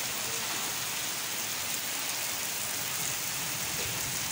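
Heavy rain pouring steadily, an even, unbroken hiss of downpour on wet concrete.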